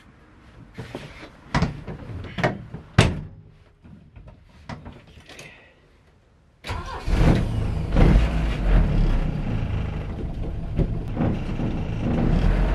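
A few sharp knocks and clicks from inside a classic Saab 900's cabin, then its engine starts suddenly about six and a half seconds in and runs steadily, heard from inside the car.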